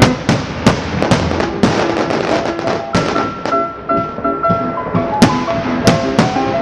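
Background music with a beat of sharp percussive hits over held notes.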